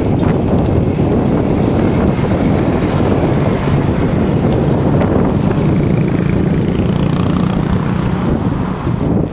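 Wind buffeting the microphone of a handlebar-mounted phone while riding along a street, a loud steady low rumble. A faint steady hum comes in about three and a half seconds in and fades near the end.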